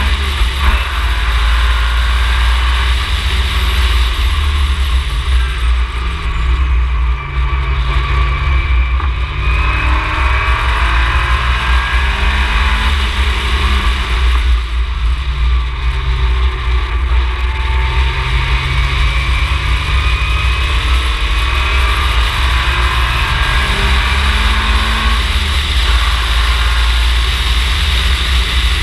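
Ginetta G20 race car engine revving hard and easing off, its pitch climbing and falling several times, over a heavy steady low rumble.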